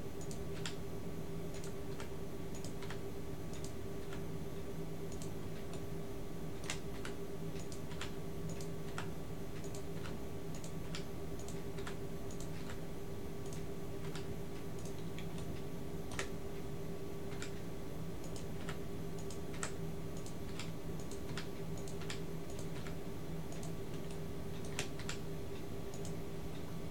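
Computer mouse and keyboard clicks, scattered and irregular, with a few sharper ones, over a steady low electrical hum.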